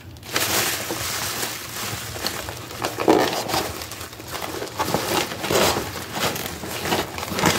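Plastic bubble wrap crinkling and rustling as it is handled and pulled open, with louder crackles now and then.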